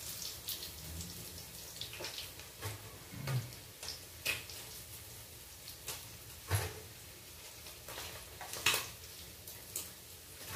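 Milkfish steaks frying in oil, with a faint steady sizzle. Metal tongs click and clink against the pan now and then as the pieces are lifted out.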